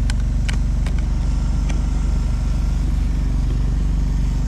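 Engine idling steadily, with a few light clicks and knocks about a second in.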